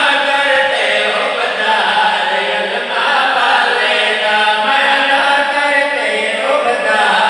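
A qasida (devotional praise poem) refrain chanted to a steady melody by several voices together, over a public-address microphone.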